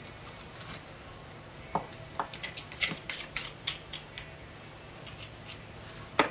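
Barbecued oyster being pried open: the shell clicks and scrapes in a quick run of small, sharp clicks about two seconds in, with a few fainter ones after and one more click near the end.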